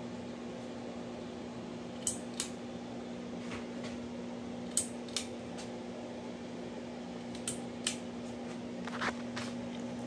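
Harbor Breeze Armitage II ceiling fan running: a steady motor hum, with light clicks that come in pairs every two to three seconds.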